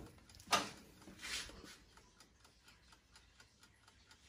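Screw cap being twisted off a glass sauce bottle: a sharp click about half a second in, then a short scraping rasp about a second later.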